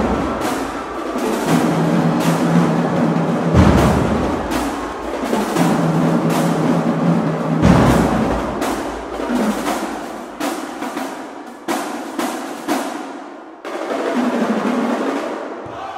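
Marching drumline of snare drums, bass drums and cymbals playing a fast, dense cadence with rolls, punctuated by heavy bass drum hits. Near the end it thins to a few separate accents, then swells again.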